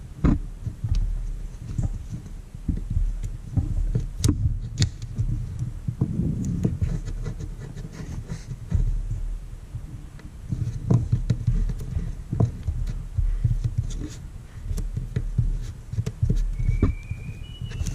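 Irregular low thumps and soft taps of hands rolling and pressing a kneadable eraser putty onto a post-it note on a desk, picking up the eraser crumbs.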